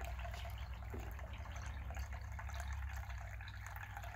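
Small tiered tabletop fountain running, water trickling and splashing steadily from tier to tier, over a steady low hum.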